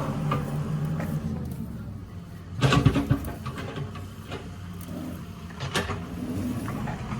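Backhoe loader's diesel engine running steadily, with a loud metallic clatter about three seconds in and a single sharp knock near six seconds.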